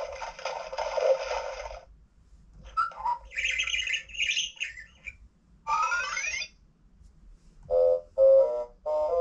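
Electronic toy book playing short recorded animal sound effects through its small speaker, one after another. It starts with a noisy burst, followed by bird-like chirping calls, then a few rising whistle-like glides, and near the end a run of short pitched notes.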